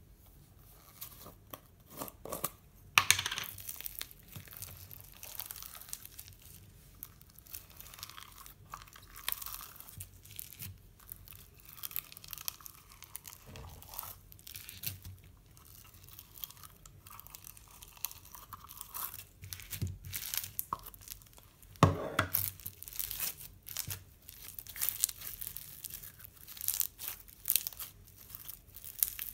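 Speckled slime being squeezed in its tub, pulled out and stretched by hand, with crackling, crinkling and sticky tearing sounds. A couple of louder crackles stand out, about three seconds in and about two-thirds of the way through.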